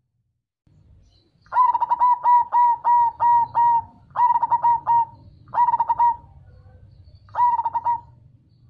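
Zebra dove (perkutut) cooing: a fast run of about eight short, clear notes, then three shorter phrases of three or four notes each.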